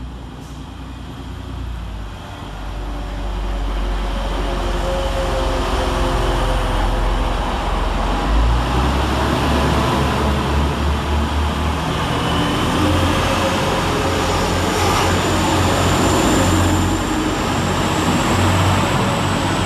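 Two coupled Class 185 diesel multiple units passing slowly, their Cummins underfloor diesel engines running with a low, steady hum that grows louder a couple of seconds in as the train draws close. A thin high whine rises near the end.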